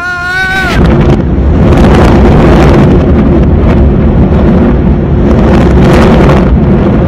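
A warning siren's rising wail ends just under a second in. A loud, sustained rumble of the tower-demolition blast and collapse takes over, with several surges, and wind buffets the microphone.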